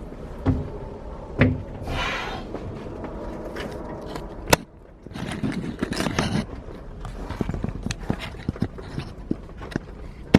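Metal engine parts being handled in a workshop: a few sharp knocks and clanks, a short scraping rush about two seconds in, then a long run of small clicks and taps.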